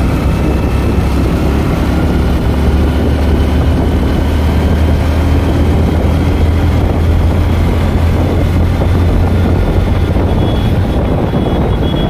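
Wind rushing over the camera microphone on a moving motorbike, a steady low rumble, with the bike's engine running steadily underneath.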